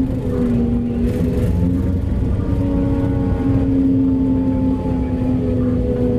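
Mining haul truck's diesel engine running while driving, heard from inside the cab: a steady low drone with a humming tone that shifts slightly in pitch a few times.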